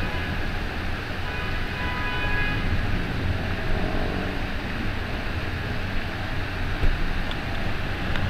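Steady rush of storm rain and wind with a deep low rumble. In the first few seconds a faint high tone sounds in short broken pulses over it.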